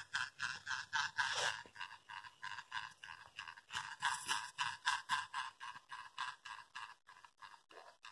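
Small toy DC motor driving a Lego Technic buggy through a rubber-band friction drive, whirring in a regular pulse of about four to five beats a second. The pulse weakens and grows uneven near the end.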